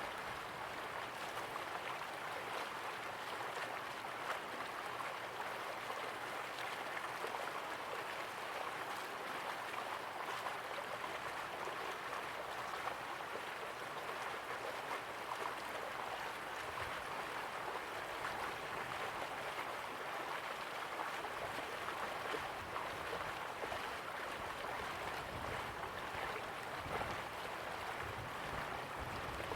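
River water flowing steadily, an even rushing and gurgling with small splashes flickering through it.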